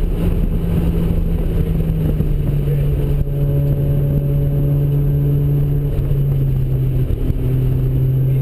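Mazda RX-7's ported twin-turbo rotary engine running hard on track over heavy road and wind rumble. The engine note holds fairly steady, stepping down a little in pitch about two seconds in and again near the end.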